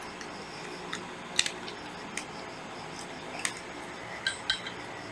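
Scattered light clicks and taps, about eight in five seconds, as a small screwdriver is worked at the cutting head of a Hitachi cordless threaded-rod cutter, over a faint steady hum.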